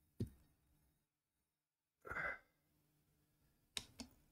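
Faint handling clicks as a 1000 W direct-drive e-bike hub motor is turned round by hand, one click just after the start and two near the end, with a person's short exhale about two seconds in.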